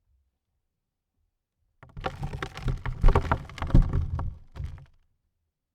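Dirt falling onto a coffin lid: a burst of pattering with dull low thuds that starts about two seconds in and lasts about three seconds. The two heaviest thuds land near the middle.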